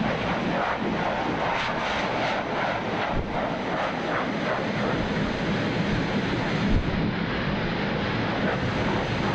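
Dog grooming dryer blowing steadily, a loud even rush of air with a low hum, as it dries a Newfoundland's thick coat.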